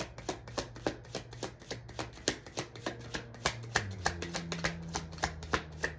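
A tarot deck being shuffled by hand: a quick, even run of card clicks, about six a second. A faint low hum lies underneath and shifts in pitch a little after halfway.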